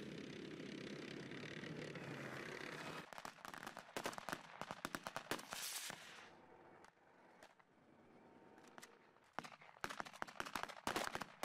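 A heavy vehicle's engine running steadily, then about three seconds in rapid machine-gun fire in bursts. After a quieter stretch with scattered shots, a second run of bursts comes near the end.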